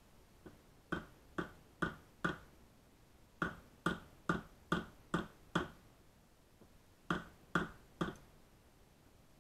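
Sharp wooden knocks, about two a second in three runs of four, six and three, as a small Øyo axe is tapped to seat its head down onto a new wooden handle.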